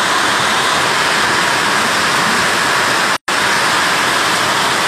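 Heavy rain falling, a loud steady hiss that cuts out for a split second once, a little after three seconds in.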